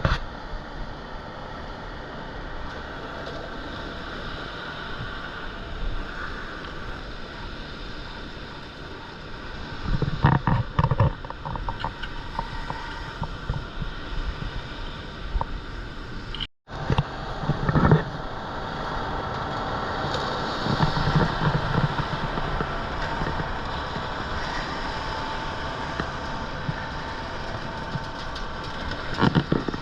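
Concrete mixer truck running steadily during a concrete pour, with louder bursts of knocking and scraping now and then. The sound breaks off for a moment about halfway through.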